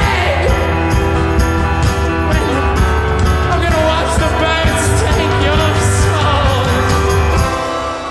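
Live rock band playing loudly, with sung vocals, electric guitar, drums and a shaken tambourine. The heavy low end of the band drops away near the end.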